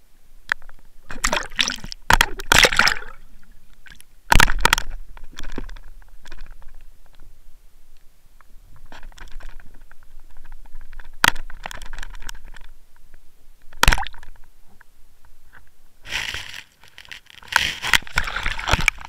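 Water splashing and gurgling around a Water Wolf underwater fishing camera on the line as a hooked mirror carp splashes at the surface, heard through the camera's sealed housing. There are irregular splashes, a couple of sharp knocks against the camera, and a busier stretch of splashing and scraping near the end.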